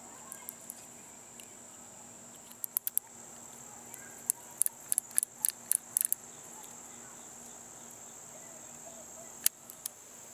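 Small sharp clicks of .22 LR cartridges being pushed one by one into the nine-shot cylinder of an H&R 922 revolver, a quick run of clicks from about two and a half to six seconds in, with two or three more clicks near the end. A steady high insect drone underneath.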